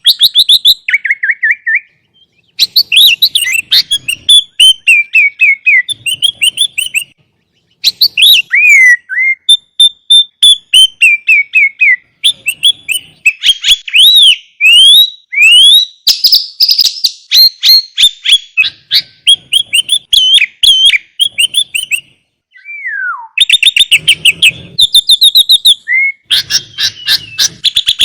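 Sooty-headed bulbul singing a loud, fast, varied song of rapid chirps and whistled phrases, some sliding up or down, broken by a few short pauses.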